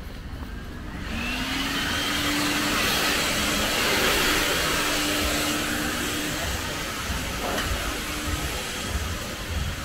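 A motor-driven machine starts up or draws near about a second in, its hum rising in pitch and then holding steady under a loud rushing hiss, which slowly eases off toward the end.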